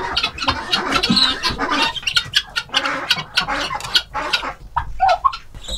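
Flock of helmeted guinea fowl calling: many short, rapid calls overlapping one another, several a second.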